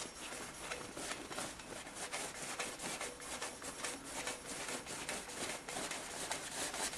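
Hand polishing of metal: rapid, scratchy rubbing strokes, several a second, with no steady rhythm.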